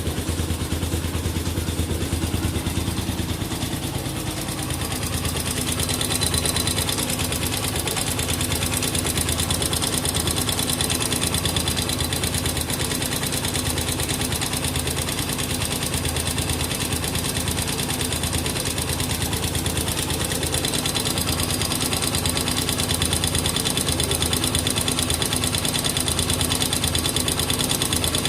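Honda XR200R's air-cooled single-cylinder four-stroke engine idling steadily, with a rapid metallic ticking running through it. The owner takes this engine noise for something that is not normal.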